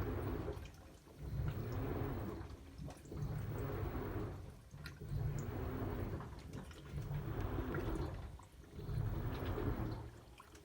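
LG top-loading washing machine agitating a tub full of water, the water sloshing in a steady rhythm of surges about every two seconds with a faint motor whine rising and falling under each stroke. The title presents the machine as overfilling.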